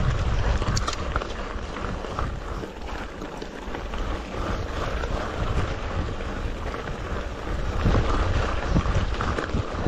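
Wind buffeting the microphone of a camera riding along on a mountain bike over a dirt road, with the rumble and rattle of the tyres and bike on the rough surface.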